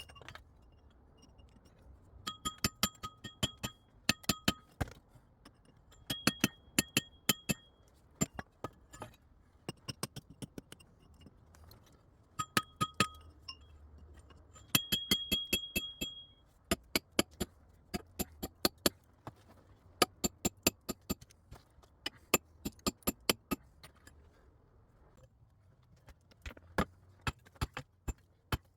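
Repeated sharp strikes of a metal tool on rock, coming in runs of several a second with short pauses, many carrying a clear metallic ring.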